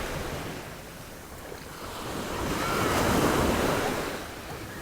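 Waves breaking on the shore, the surf easing about a second in and swelling again to its loudest about three seconds in, with wind buffeting the microphone.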